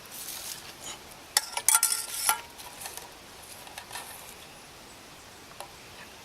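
Metal utensil scraping and clinking against a metal canteen cup while food is dished out, with a cluster of sharp ringing clinks from about one and a half to two and a half seconds in, then a few lighter taps.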